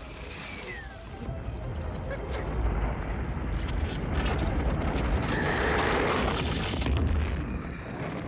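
Film sound effect of the Rock Biter, a giant rock creature, walking: a deep rumbling of grinding, crashing rock with stones cracking and clattering. It builds from about two seconds in, is loudest in the later middle, and eases near the end.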